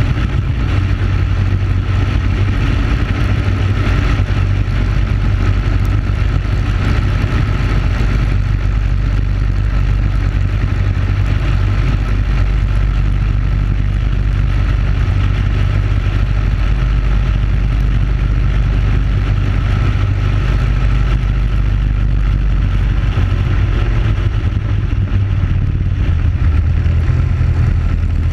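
Briggs & Stratton Animal single-cylinder four-stroke kart engine running flat out at racing speed, a steady, unbroken note.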